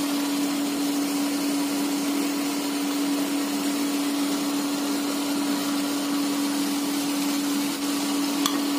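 Gujiya deep-frying in ghee in a kadhai: an even, steady sizzle under a steady low hum. A faint utensil tick comes near the end.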